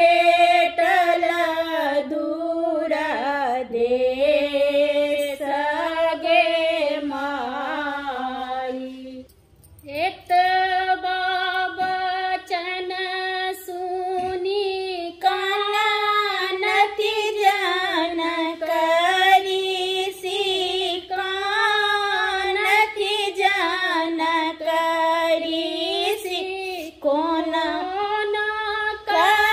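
A woman singing a Maithili wedding folk song unaccompanied, breaking off briefly about nine seconds in before carrying on.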